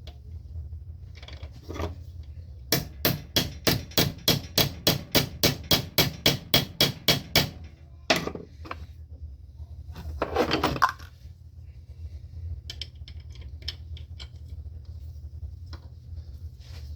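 A rapid, even run of about seventeen sharp strikes, about four a second, from work on a nylon lock nut being started onto a bolt. After a pause comes a single strike, then a short scraping noise and a few faint clicks.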